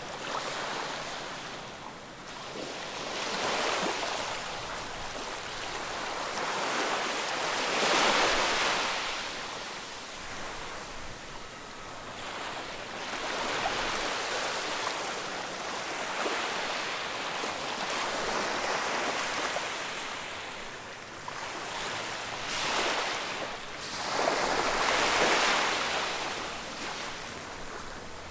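Sea waves breaking and washing onto the shore, the rush of surf swelling and fading every few seconds.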